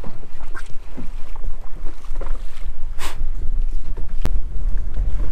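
Strong wind buffeting the microphone aboard a small inflatable boat in choppy sea, with water splashing against the hull and a sharp click about four seconds in.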